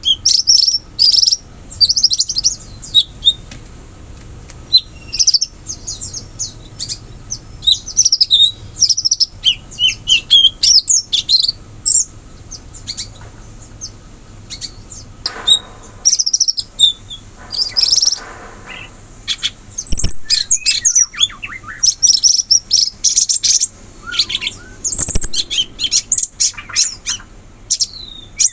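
Cucak cungkok songbird singing energetically in a long run of rapid, high chirps and trilled phrases, with a couple of short rattling passages. Two sharp clicks sound in the second half.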